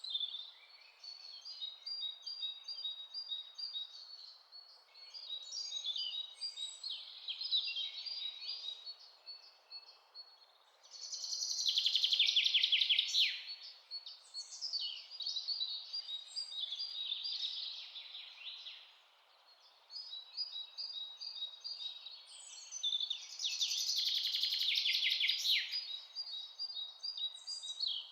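Songbirds singing and chirping continuously over a faint steady hiss. Two louder songs of rapid repeated falling notes come about eleven seconds in and again about twenty-three seconds in.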